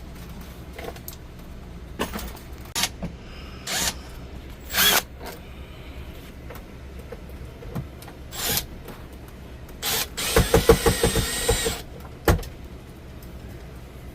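Cordless drill/driver run in short bursts, driving screws into mounting holes, with a longer rattling run of rapid pulses about ten seconds in, over a low steady hum.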